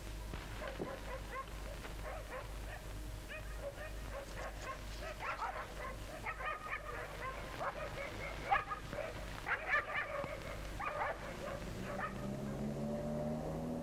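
Village dogs barking and yelping, a scattered string of short barks that grows busier toward the middle, over a steady low film hum. Near the end a low steady sound with several tones comes in, rising slightly in pitch.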